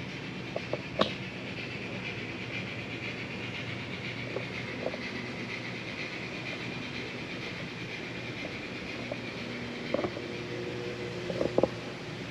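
A steady whir and hiss, with a few light clicks and knocks about a second in and a small cluster of them near the end.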